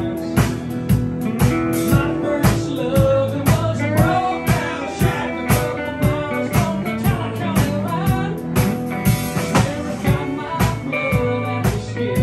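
A live band playing a bluesy rock song: a drum kit keeping a steady beat of about two hits a second under acoustic guitar, electric guitars and bass.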